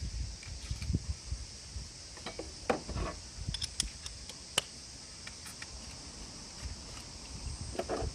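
Scattered light clicks and clinks of hard objects being handled, a cluster about two and a half seconds in and a sharp one midway, over a steady high insect chirring.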